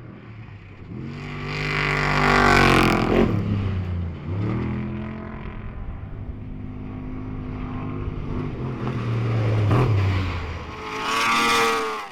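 Off-road race vehicle engines revving hard as they take a dirt jump. The pitch climbs to a loud peak about two to three seconds in, dips sharply near four seconds, holds steadier, then climbs loudly again near the end.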